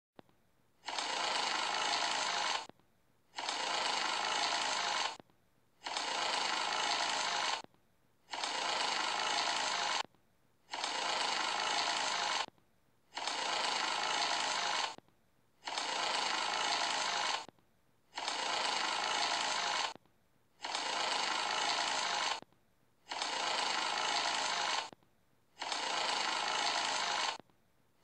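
Dragonfly wings buzzing in bursts of about two seconds, each broken by a short gap, repeating evenly eleven times.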